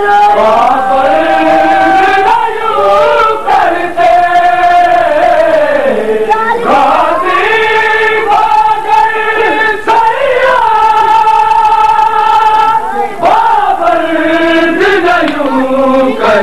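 A group of voices chanting a noha, an Urdu mourning lament, together in long held notes that slide up and down in pitch.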